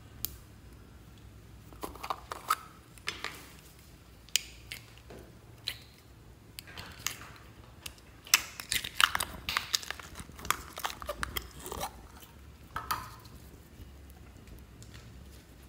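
A plastic slime container being handled and opened, then clear slime squeezed and pulled by hand: scattered plastic clicks and crackly, sticky squelches, busiest in the middle of the stretch.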